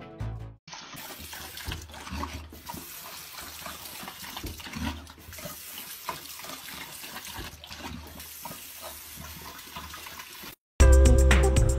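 Water running from a bathroom faucet into a sink, a steady hiss, while a dog laps at the stream with small irregular wet ticks.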